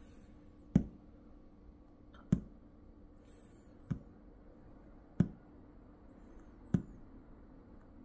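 Fingertips tapping on a desk pad while waiting: five sharp, short taps about every one and a half seconds over a faint steady hum.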